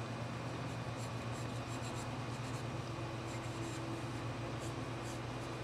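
Drawing pencil scratching across paper in short, irregular shading strokes, over a steady low hum.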